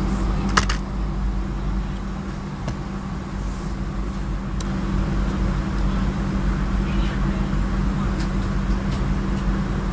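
Steady airliner cabin drone, a low hum with a constant tone, while a folding armrest tray table is handled: one sharp click about half a second in and a few fainter clicks later as its hinge and latch move.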